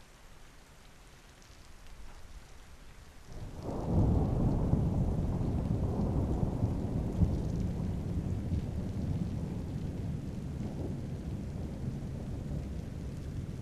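Light rain falling as a soft hiss, then about three and a half seconds in a low rumble of thunder breaks in loudly and slowly dies away.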